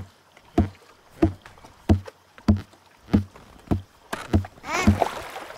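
Kayak paddle strokes in the water: a steady rhythm of short splashing dips, a little under two a second, each with a low thud. Near the end a brighter wash and a wavering higher sound come in over the strokes.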